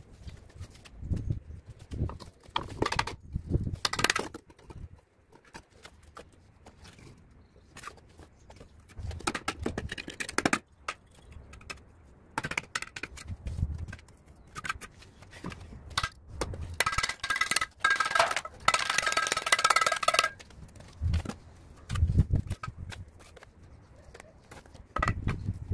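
Bricklaying work: a steel trowel knocking and tapping on hollow clay bricks and scooping mortar, giving irregular knocks and clinks. A longer grating scrape comes about two-thirds of the way through.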